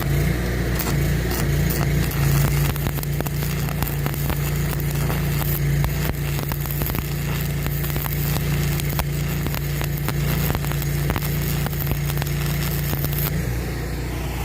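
Arc welding crackle as a weld bead is run on the bulldozer blade's steel reinforcement plate, over the steady hum of the generator engine working under the welding load. The crackle stops about a second before the end, and the engine hum eases with it.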